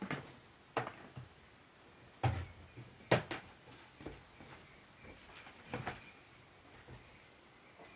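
Irregular knocks and clatters of objects being handled, about seven in all, the loudest two a little under a second apart near the middle.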